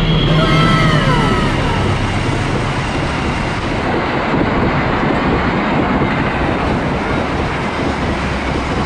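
Diesel-hauled express passenger train passing at high speed. In the first two seconds the locomotive goes by with a low engine drone and a few tones that fall in pitch, then the coaches follow with a steady rushing noise of wheels on rails.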